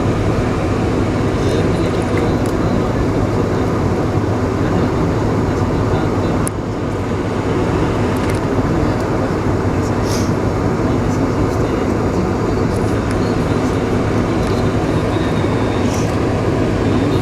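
Cabin noise inside a Boeing 747-400 on the ground during taxi: a steady rumble and hum from its Rolls-Royce RB211 engines at low power and the cabin air, with faint clicks and a brief dip about six seconds in.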